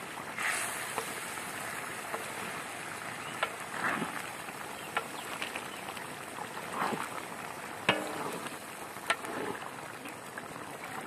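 Chicken curry simmering in an open pot, a steady bubbling hiss with scattered sharp pops.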